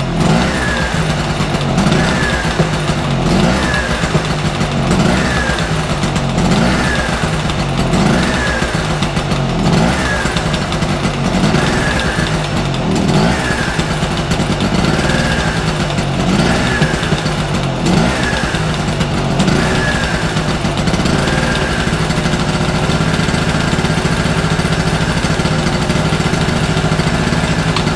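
Marksman small two-stroke petrol generator engine running, hunting: its speed surges up and falls back about every second and a half, then settles to a steady run about 21 seconds in.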